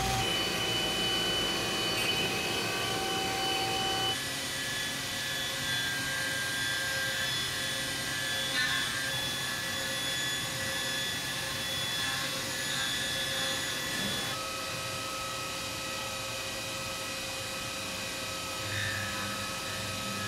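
Five-axis CNC machining center milling an A7075 aluminium block with a small R2 ball end mill: a steady spindle and cutting whine over a noisy hiss, with the set of whining tones shifting abruptly about four seconds in and again about fourteen seconds in.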